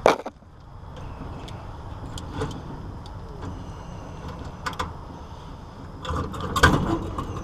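Hands-on work at an air-conditioner's wiring and conduit: a sharp knock at the start, then scattered light clicks and knocks, and a louder burst of clatter about six to seven seconds in, over a steady low background hum.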